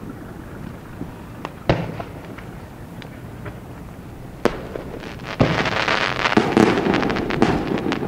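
Fireworks display: a few sharp, separate bangs of shells bursting in the first half, then from about five seconds in a dense, continuous crackling with further bangs.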